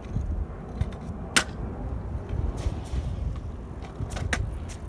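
Stunt scooter on a concrete skatepark: a steady low rumble of the wheels rolling, with one loud sharp clack about a second and a half in and two quick clacks near the end as the scooter strikes the concrete.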